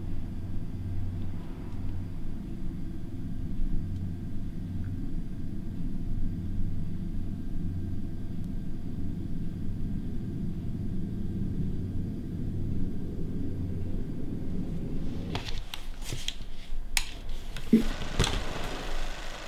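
A low, steady rumbling drone with a slight pulsing, running for about fifteen seconds. Then a scatter of sharp clicks and knocks comes near the end.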